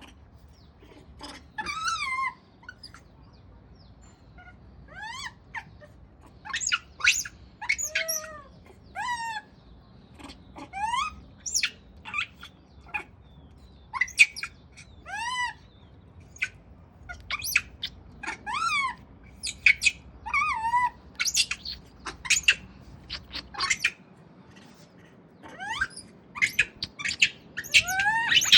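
A monkey giving repeated high-pitched squeaking cries, short calls that rise and fall in pitch, coming in irregular bursts mixed with quick chirp-like squeaks.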